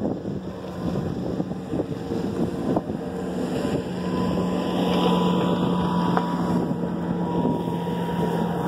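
A motorboat's engine running steadily, getting louder about four seconds in, with wind buffeting the microphone.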